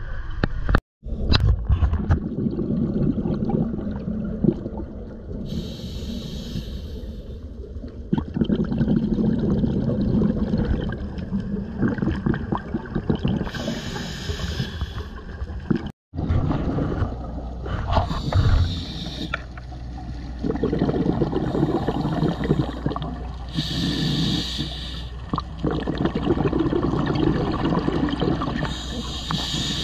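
A scuba diver breathing through a regulator underwater: a hissing burst of exhaled bubbles about every five to seven seconds, with a low rumble of water noise between breaths.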